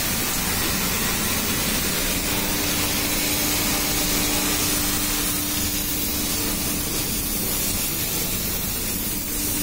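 A loud, steady hiss. A steady hum joins about two seconds in and breaks off briefly near the end.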